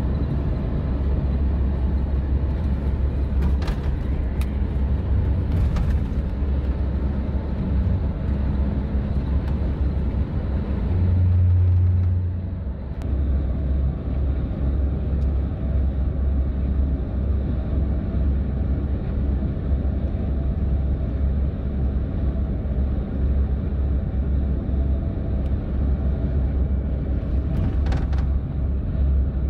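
Steady low rumble of a double-decker highway bus cruising on an expressway, engine and road drone heard from inside the cabin. A louder low drone swells briefly about eleven seconds in and then eases, and a few faint clicks sit on top.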